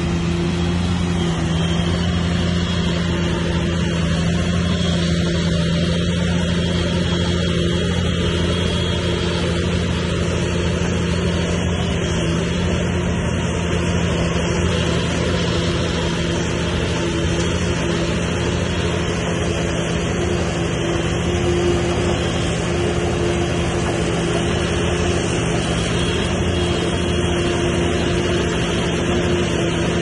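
Bulldozer's diesel engine running at a steady pitch, a continuous drone that holds even throughout.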